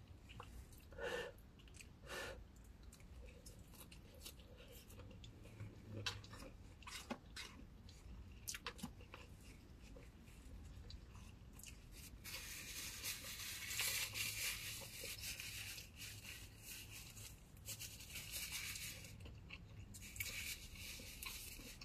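Quiet eating sounds: chewing with scattered small clicks, then a longer rustling noise from about halfway through until near the end.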